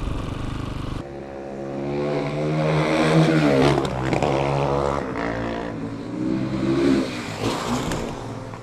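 Dirt bike engine running steadily for about a second, then, after a sudden change, dirt bike engine revving, its pitch rising and falling several times, loudest in the middle and again near the end before fading.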